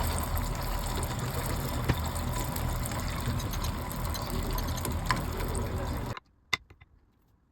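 Steady rushing, splashing liquid sound that cuts off suddenly about six seconds in, followed by a couple of light clicks.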